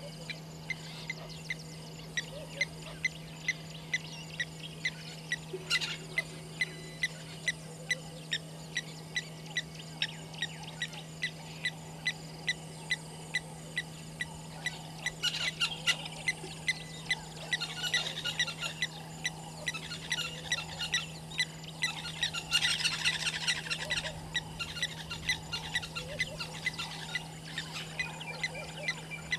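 Wild animal calls at a waterhole: a short, sharp call repeated about twice a second, with bursts of rapid high chirping in the middle.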